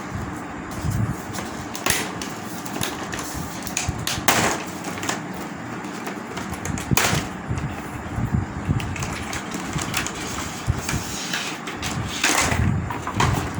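Scattered knocks, clicks and scraping of LED TV parts being handled and lifted off during disassembly, with a louder knock about four seconds in and another near the end.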